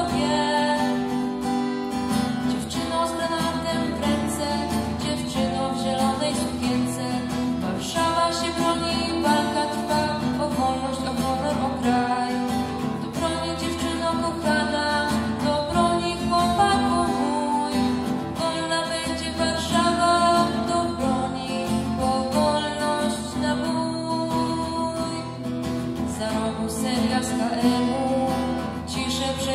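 A live song: a girl singing into a microphone, accompanied by a strummed acoustic guitar.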